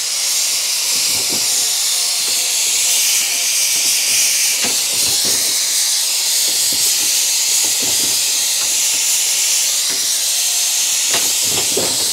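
Steady, loud hiss of steam from a 1912 Marshall steam traction engine at working pressure, with faint irregular knocks underneath.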